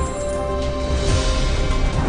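Online slot game's background music with long held tones. A brighter shimmering game effect comes in about halfway through as a win pays out.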